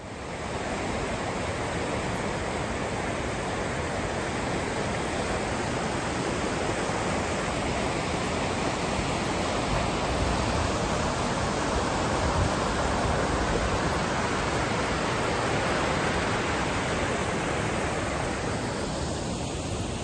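Waterfall of a snow-banked stream: water tumbling over rocks in churning whitewater, a steady, full rush of noise.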